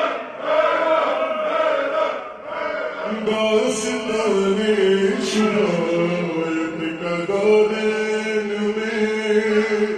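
Urdu qasida chanted by a male voice, slowed down and drenched in reverb. About three seconds in, the chanting settles into long held low notes.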